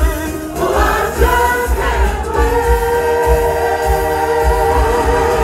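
Show music: an ensemble of singers in choir style over a band track with a heavy, regular bass beat. From about two seconds in, the voices hold a long sustained chord.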